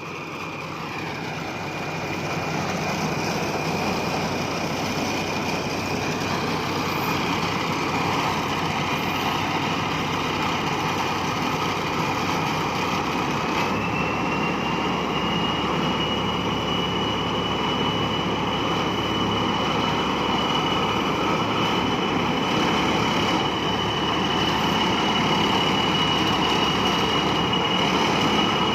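Thai Seng Yont rice combine harvester running steadily, its sound building over the first few seconds, with a steady high whine that steps up in pitch about halfway through.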